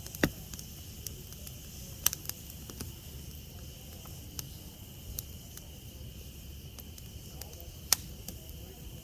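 Wood campfire crackling, with scattered small snaps and three loud sharp pops: one right at the start, one about two seconds in, one near the end.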